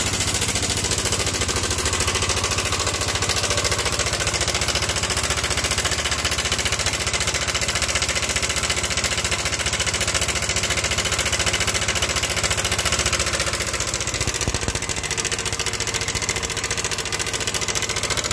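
Yamaha NMAX scooter's single-cylinder engine idling steadily with a rough, rattling klotok-klotok clatter. The mechanic puts the noise down to a failed cam chain tensioner whose inner spring no longer pushes the chain tight.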